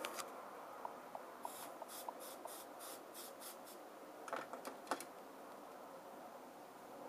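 Soldering iron tip being wiped in a brass wool cleaner: a quick run of about eight short scratchy strokes, about four a second, followed by a few sharp clicks and knocks.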